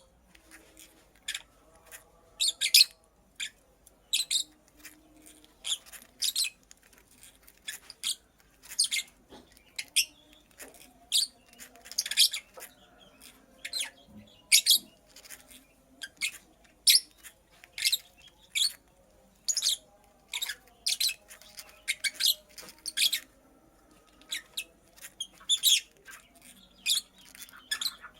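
Lovebird chirping: short, sharp, high-pitched chirps that come irregularly, one to a few each second, with occasional brief gaps.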